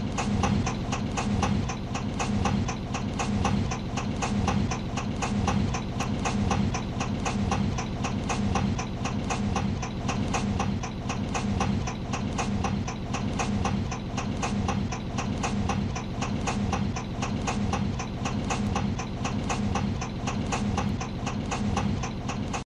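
Car engine idling with a rapid, even knock on every beat over a low running hum: an internal engine knock at idle.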